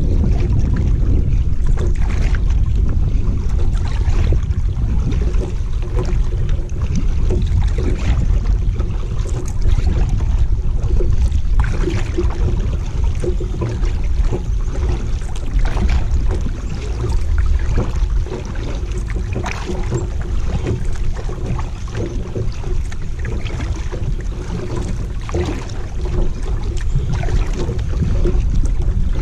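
Wind rumbling on the microphone over the splashing and dripping of a kayak paddle as the kayak moves forward on calm water.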